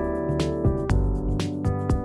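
Background music: a keyboard-led instrumental with a steady beat of about two drum hits a second.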